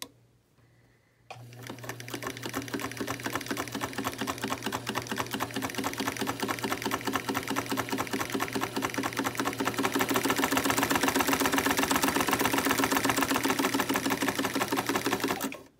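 1954 Singer 99K sewing machine, run by its belt-driven electric motor, stitching through fabric at a short stitch length. The needle and mechanism make a fast, even clatter over the motor's hum. It starts about a second in, grows louder past the middle, and stops suddenly near the end.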